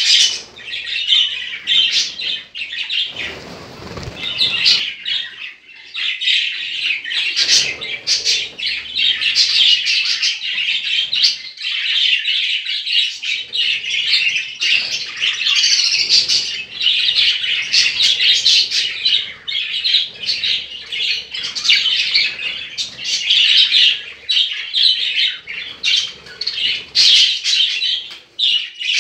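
Budgerigars chattering with continuous rapid chirps and warbles.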